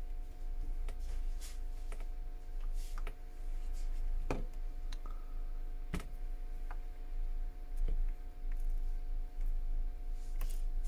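Scattered light clicks and taps of small tools and parts on an iPhone being reassembled, a few seconds apart, over a steady low hum.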